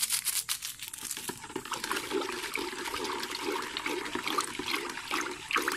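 Rice-washing water sloshing and swirling in a plastic bucket as it is stirred with a plastic stick to dissolve vetsin, after a brief rustle of the small paper packet being emptied at the start.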